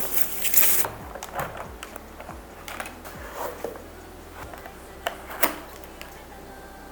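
Irregular clicks and clacks of a mechanical keyboard being handled, with a short rustling burst at the start and two sharper clacks about five seconds in.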